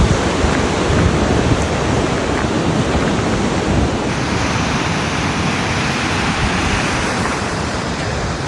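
Ocean surf washing onto a beach in a steady hiss, swelling brighter midway, with wind rumbling on the microphone.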